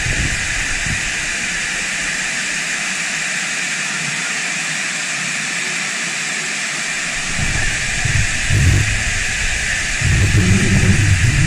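Steady rush of water pouring over a dam spillway and churning the river below. Irregular low rumbling joins in from about two-thirds of the way through.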